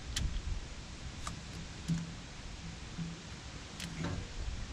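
A few faint, scattered clicks and knocks of hands working with parts, over a low steady background.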